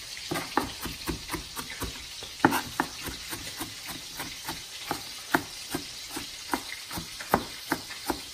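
Chef's knife chopping onion on a plastic cutting board: a steady run of sharp knocks, about two to three a second, as the blade is rocked through the pile. The chopping stops just before the end.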